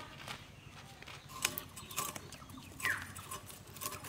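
Scattered light scrapes and taps as a hilsa fish is rubbed in ash, with a faint falling bird chirp about three seconds in.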